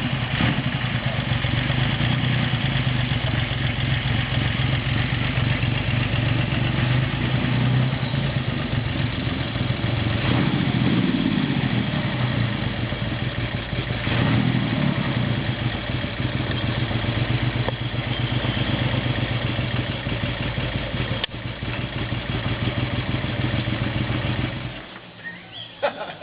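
Triumph Hurricane X75's three-cylinder engine running at idle just after being kick-started, revved up briefly twice about ten and fourteen seconds in. It cuts off about a second before the end.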